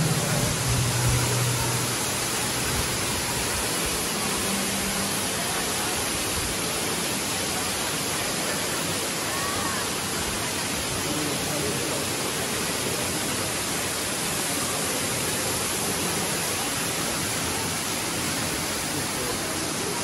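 Underground cave waterfall pouring steadily into its pool: an even, unbroken rush of falling water.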